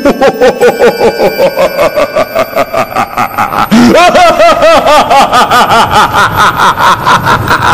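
An animated demon character's rapid, drawn-out maniacal laugh, a quick run of short pitched 'ha' pulses that grows louder about four seconds in.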